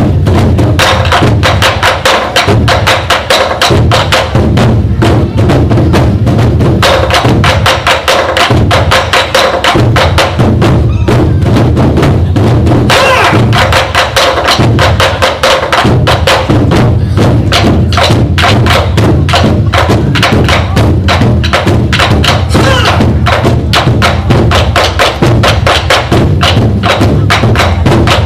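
A drum ensemble playing a fast, dense rhythm: rapid stick strokes that never let up, with sharp wooden clicks over a deep, booming drum layer.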